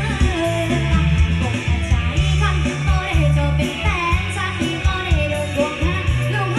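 A Thai song with a singing voice and heavy bass played loud through a homemade outdoor loudspeaker.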